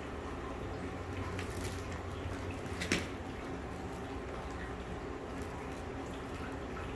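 A cat eating small chunks of wet meat: soft wet chewing sounds and faint clicks, with one sharper click about three seconds in, over a steady low background hum.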